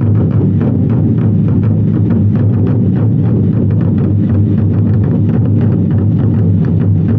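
An ensemble of large Chinese barrel drums (24 Festive Drums) struck together in a fast, even beat of sharp, heavy strokes.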